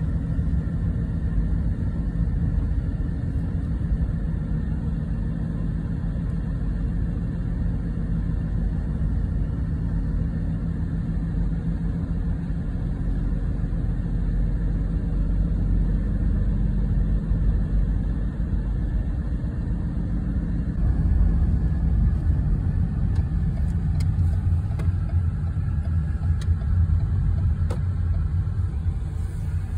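Car interior road noise: a steady low rumble of engine and tyres while driving, growing louder about two-thirds of the way through.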